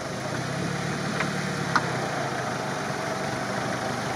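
Engine of a UAZ off-roader on BTR armoured-carrier tyres running at low revs while the truck is stuck in swamp mud. Two short knocks come a little after one second and near two seconds in, the second the louder.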